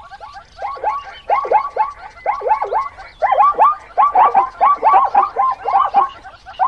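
Zebra calling: a rapid series of short, high yelping barks, about three to four a second, with a brief pause about halfway through.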